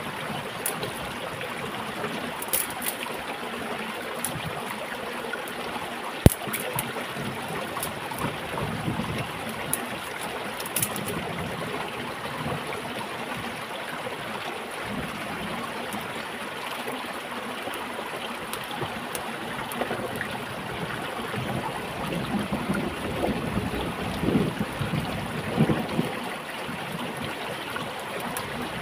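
Shallow stream running over rocks, a steady rush of water, with scattered small sharp clicks and one louder knock about six seconds in; the sound grows rougher and more uneven for a few seconds near the end.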